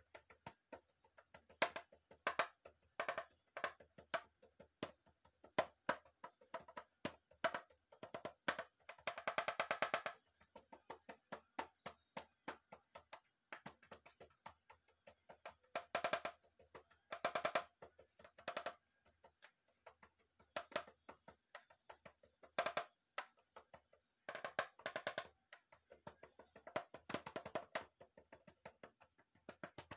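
Homemade percussion instrument, a pink plastic ball, tapped by hand in a rhythmic pattern of quick, slightly pitched knocks broken by fast rolls several times.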